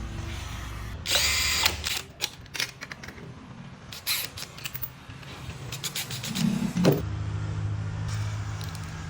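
Power drill running in a short burst about a second in, followed by scattered clicks and knocks. A second short run rises in pitch just before the last couple of seconds, and a lower steady sound follows.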